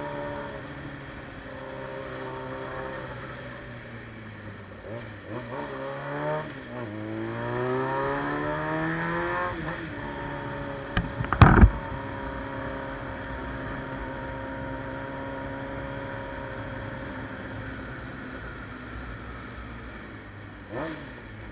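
Suzuki Bandit 600's carbureted inline-four with a straight-through exhaust, revving up hard from about six seconds in and dropping back near ten seconds. A loud sharp bang comes about eleven seconds in, then the engine holds a steady note.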